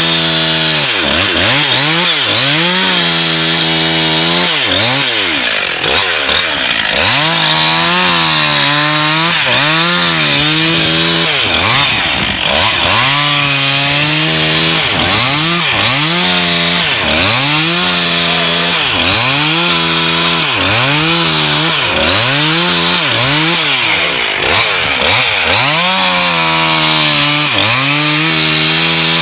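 Two-stroke chainsaw cutting through thick ice, its engine revving up and falling back again and again, about once a second.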